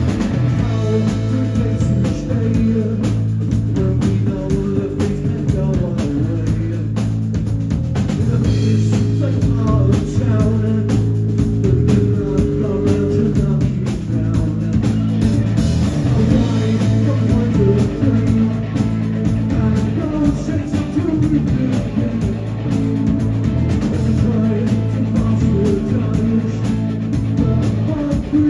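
Live rock band playing a song: distorted electric guitars, bass and a drum kit with a steady beat, under a male lead vocal sung into the microphone.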